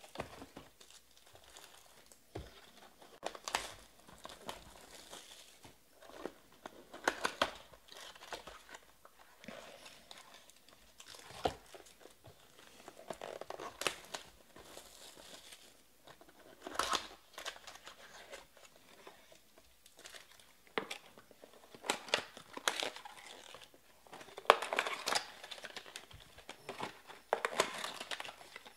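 Plastic shrink-wrap and foil card-pack wrappers crinkling and tearing as boxes of trading cards are opened by hand, in irregular bursts with short pauses, and a few light taps.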